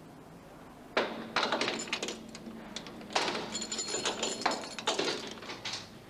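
Heavy steel cell door being unlocked and opened. Clanks and metallic rattling start suddenly about a second in and last about four seconds, with a brief high metal squeal in the middle.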